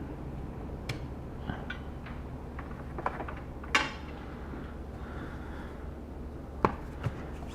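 A few light clicks and knocks of objects being picked up and set down, most likely the laptop and screwdrivers being handled, over a steady low hum; the loudest knock comes a little before the middle.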